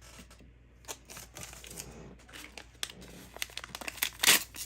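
Small plastic blind bag being opened and handled by hand: a run of crinkling crackles, clicks and taps that grows busier, with the loudest crackle about four seconds in.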